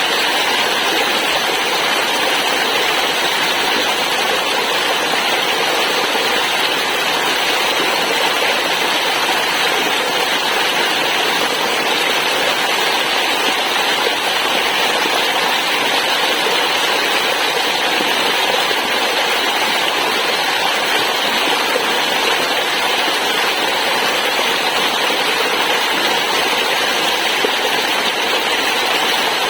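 Waterfall: falling water rushing steadily, an even noise that does not change.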